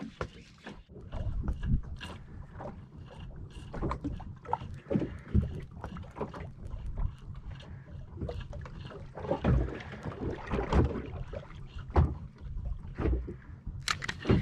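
Water slapping against the hull of a small fishing boat at sea: irregular slaps and knocks over a low rumble.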